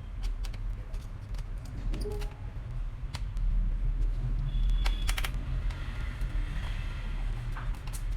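Scattered light clicks and taps from handling a laptop and small tools during disassembly, with a cluster of clicks about five seconds in, over a steady low hum.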